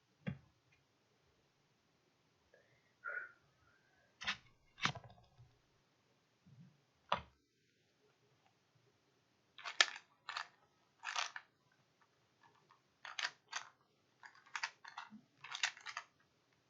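Plastic 3x3 Rubik's Cube being turned by hand during a solve: short clicks and rattles of the layers twisting, coming in irregular clusters with silent pauses between. The turns are denser in the second half.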